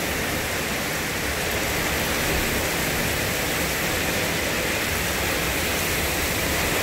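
Heavy rain pouring down steadily, an even hiss with a low rumble underneath.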